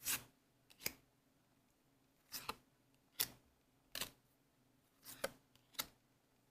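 Trading cards being handled and moved one at a time, making about seven short, crisp card sounds spaced roughly a second apart.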